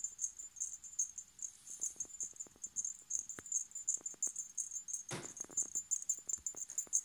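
A steady high-pitched chirping that pulses several times a second, with faint light ticks and a single short thump about five seconds in.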